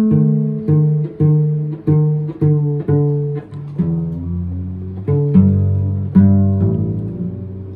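Open strings of a cello plucked pizzicato one after another, about twice a second: a higher string repeated first, then the lower strings from about halfway. The strings are being sounded to check their tuning by ear.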